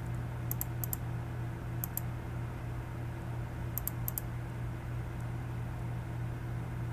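Light clicks from the Amiga 2000's mouse or keyboard controls, coming in quick pairs about five times in the first four seconds, as the browser page is scrolled. Under them runs the computer's steady low electrical hum.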